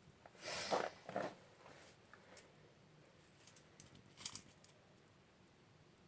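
Brief rustling and handling noises, then a few faint clicks about four seconds in.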